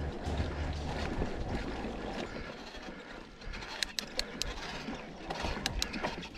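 Mountain bike rolling over rough singletrack: a steady rush of tyres on the dirt and grass, with the rear freehub ratchet ticking and sharp clicks and rattles from the bike, most clustered about four seconds in and again near the end.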